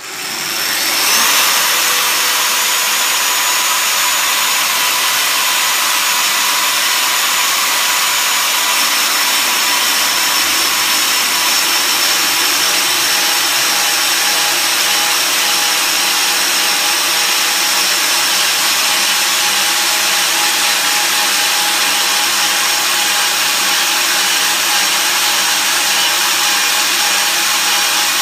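KRAIS PanelMill-PF tube-end milling machine starting up and running steadily, its rotating head with three carbide inserts cutting Inconel cladding off a 2.5-inch tube. A loud, even power-tool noise with steady high whining tones, rising to full speed in the first second or so.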